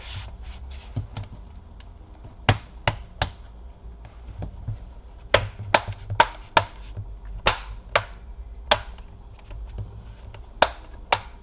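Plastic clips of a Lenovo IdeaPad 320 laptop's bottom cover snapping into place as the cover is pressed on: about a dozen sharp clicks, coming in small groups of two to four.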